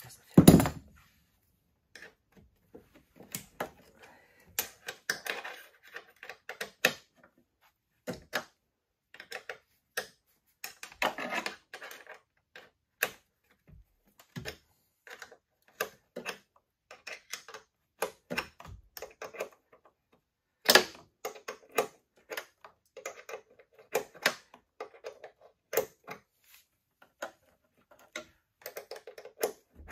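Irregular metal clicks and clinks of a 10 mm wrench working the bolts on a snowmobile's chain case cover, loosening them to drain the chain case oil. A loud knock comes about half a second in and another near the two-thirds mark.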